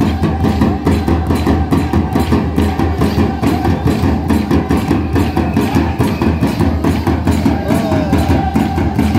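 Live folk music of a stick dance: drumming with a quick, even beat of wooden dance sticks clacking together, and voices over it.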